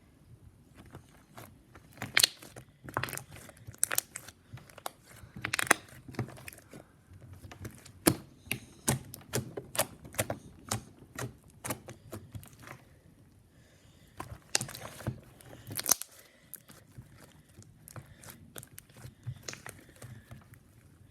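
Fluffy slime being squished and stretched by hand, giving off irregular clusters of sharp crackles and pops as the air pockets in it burst.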